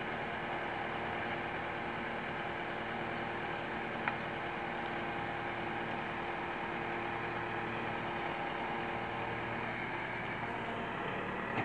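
Truck engine idling steadily, with one short click about four seconds in.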